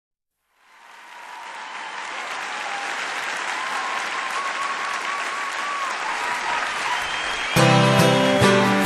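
Audience applause swelling up, then acoustic guitar strumming starts about seven and a half seconds in: the opening of a live recording of a country song.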